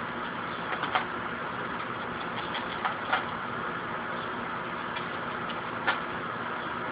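Squirrel gnawing and tearing at carpet: irregular scratchy clicks, a few of them sharper and louder, over a steady hiss.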